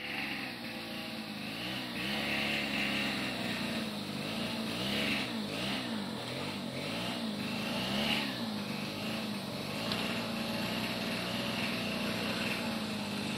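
Motor and gears of an RC rock crawler running under throttle as it climbs rocks, the whine rising and falling in pitch over and over as the throttle is worked.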